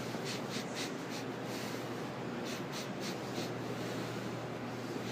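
Short scratchy rubbing or rustling sounds in quick runs of several a second, over a steady low hum.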